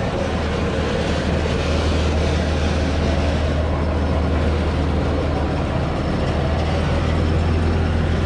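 1942 GE 45-ton diesel-electric switcher's diesel engines idling with a steady low rumble.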